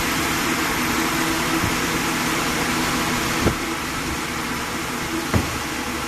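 Steady machinery hum with a broad hiss over it, and two sharp knocks about two seconds apart.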